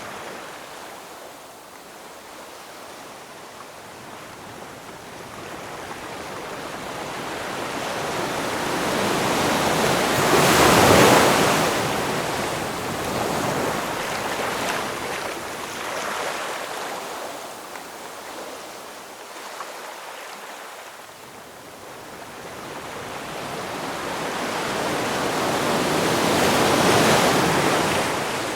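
Ocean surf: a steady rush of waves that swells to a loud peak twice, about sixteen seconds apart, and dies down in between.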